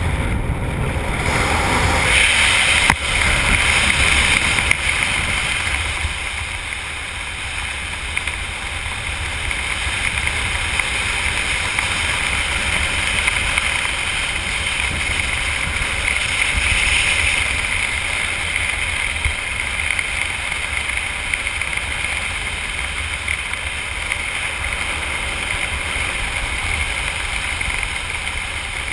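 Steady wind rushing over the camera's microphone as the skydiver flies under an open parachute canopy, a little louder for a few seconds near the start.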